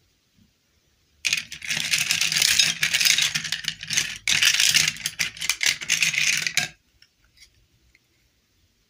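Small plastic dolls and clip-on plastic dresses clattering against each other and against a ceramic bowl as hands rummage through the pile. It is a dense rattle of many small clicks, starting about a second in and lasting about five and a half seconds, then stopping.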